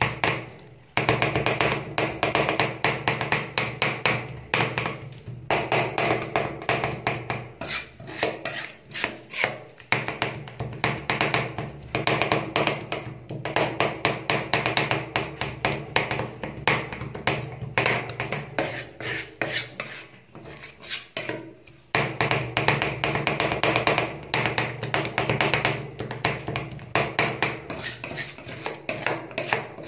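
Two metal spatulas rapidly chopping and scraping mint leaves and dates into freezing cream on a steel rolled-ice-cream cold plate. The sound is a dense run of quick metal clicks and scrapes, broken by a couple of short pauses.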